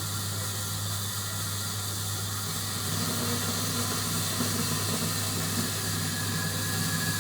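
Steady machine hum over a broad hiss, stepping up slightly about three seconds in.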